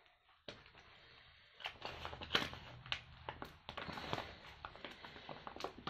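Crinkling and rustling of a diamond painting canvas's protective release paper being handled, as irregular crackles that become busier and louder after about a second and a half.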